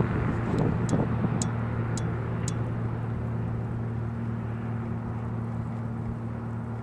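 Propeller airplane engine droning steadily with a constant low hum, slowly fading as it moves away.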